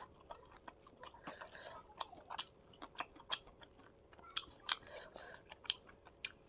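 Close-miked chewing of a fish-and-rice meal: mouth sounds with many sharp, irregular clicks of lips and teeth and short smacking noises.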